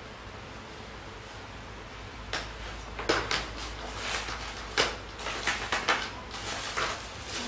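Glass jars and plastic cups knocked together and set down in a plastic basket, a run of sharp clinks and clatters starting about two seconds in over a steady low hum.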